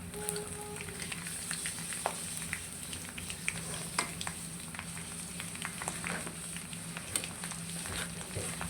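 Chicken pieces frying in hot oil in a karai: a steady sizzle with scattered crackles and pops.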